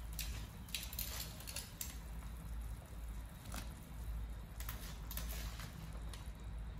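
Diced carrots and potatoes going into a pot of boiling water with meatballs, a series of short wet splashes and plops, over a steady low hum.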